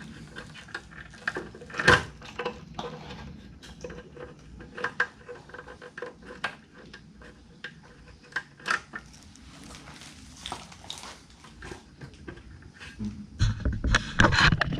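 Scattered clicks, taps and knocks of plastic clips, connectors and wires being worked loose as a car's wiring harness is freed from behind the dashboard, with one sharper knock about two seconds in. Louder rustling and dragging near the end as the harness comes free.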